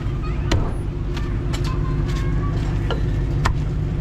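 Heavy meat cleaver chopping roast meat on a thick round wooden chopping block: about seven sharp chops at an uneven pace, roughly every half second. Street traffic rumbles steadily behind.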